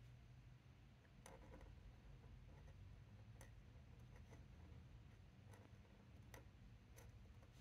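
Near silence: low room hum with a handful of faint, sharp clicks spread through it, from a pen nib tapping and scratching on a card as short strokes are drawn.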